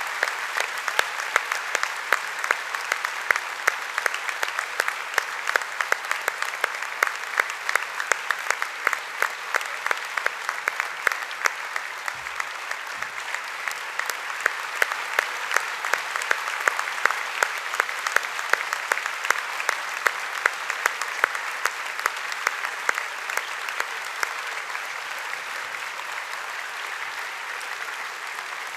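Large audience applauding: a sustained round of dense clapping with some sharper individual claps standing out, easing slightly near the end.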